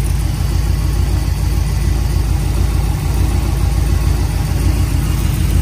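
Oldsmobile 403 V8 idling steadily, warmed up and pulling about 15 inches of vacuum, which is the sign of a healthy idle.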